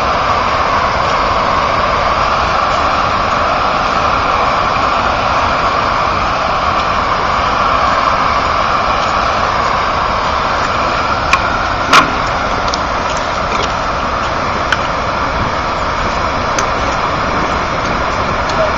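Floodwater pouring over a dam, a loud steady rush; a few sharp clicks, the loudest about twelve seconds in.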